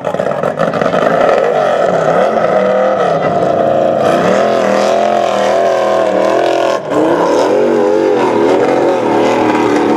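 Formula Offroad hillclimb buggy's engine revving hard as it climbs a steep sand slope with its wheels spinning. The pitch rises and falls over and over, with a brief drop about seven seconds in.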